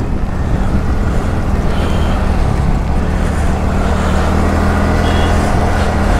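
TVS Ntorq scooter's single-cylinder engine running steadily under way, mixed with wind rush on the microphone and traffic, on a rain-wet road.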